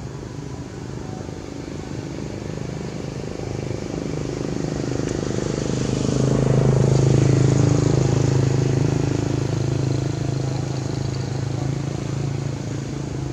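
A motor vehicle's engine passing by: a steady hum that swells to its loudest about seven seconds in and then fades, dropping slightly in pitch as it goes past.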